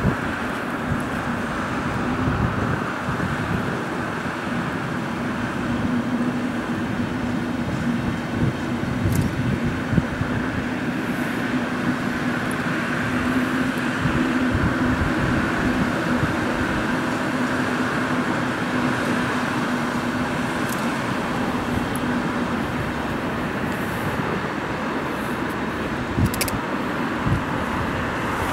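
Passenger train of blue-and-white coaches rolling along the tracks, a steady hum and rumble that fades out about three quarters of the way through, over the noise of road traffic.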